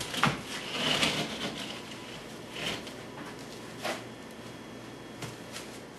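A large board being lowered onto a freshly mortared countertop and pressed down by hand: a scuff as it goes down about a second in, then a few scattered soft knocks.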